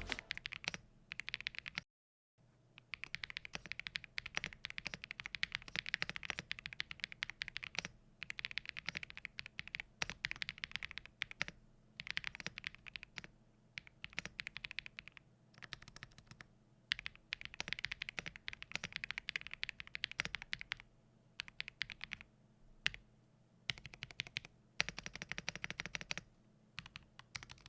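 Typing on a budget custom mechanical keyboard, a Zuoya GMK67 gasket-mount plastic board with Akko yellow switches, in fast clacking runs of keystrokes broken by short pauses. The board's case is unmodded, with no added foam.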